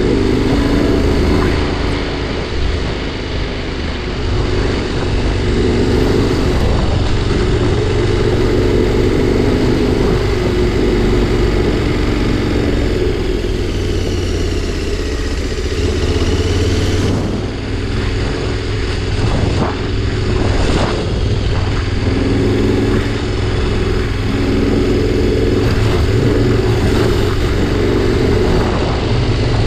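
Adventure motorcycle's engine running steadily as it rides a dirt road, with noise from the ride over it. A faint rising whine comes about halfway through, and a few short knocks follow soon after.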